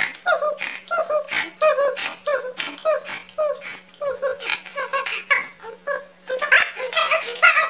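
A man's voice making high-pitched, wordless rhythmic sounds, about three syllables a second, between giggling and nonsense chanting. A steady low hum runs underneath.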